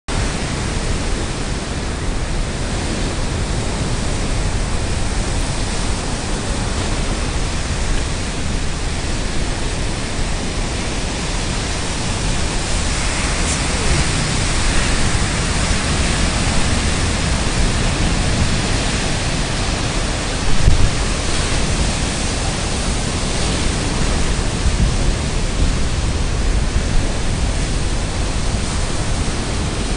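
Steady rush of ocean surf breaking on a sandy beach, mixed with wind buffeting the microphone. A short louder thump comes about two-thirds of the way through.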